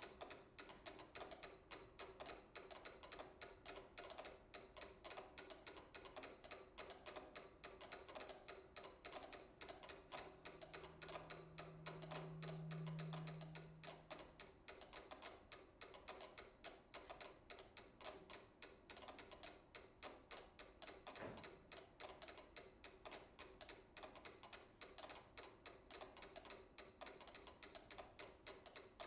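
Four mechanical pyramid metronomes ticking together at different tempi, their ticks overlapping into a dense, shifting patter. About a third of the way in, a low steady tone swells in and fades away over about four seconds.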